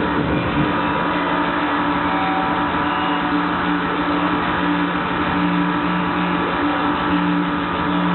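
Live rhythmic industrial noise music: a loud, dense wall of distorted noise over two steady low drones, with the low pulsing thinning out about two seconds in.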